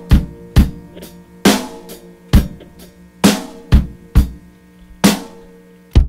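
Drum kit playing loose, spaced-out kick, snare and cymbal hits over a fading held chord, the closing bars of a song, with a last hit right at the end.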